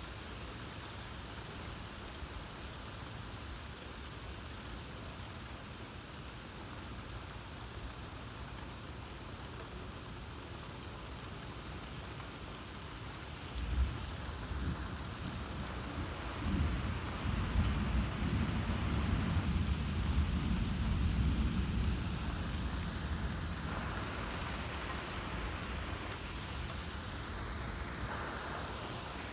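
Steady rain falling, with a clap of thunder breaking in sharply about halfway through. The thunder rolls on as a deep rumble for several seconds, then slowly fades.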